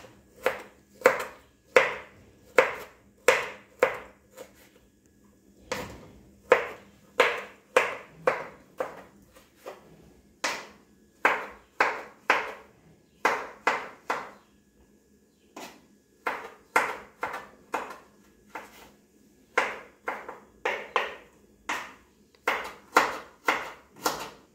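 Kitchen knife chopping ginger on a wooden cutting board: sharp knocks of the blade striking the board, about two a second, in runs of several strokes with short pauses between.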